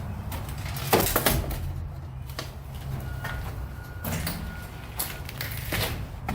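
Scattered knocks and clatters over a steady low rumble, the loudest pair about a second in.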